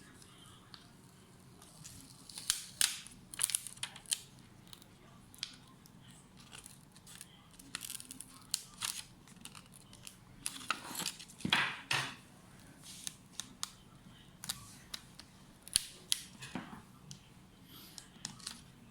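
Hands working on the laptop and its packaging: irregular sharp clicks, snaps and short scraping rustles, busiest and loudest about eleven seconds in.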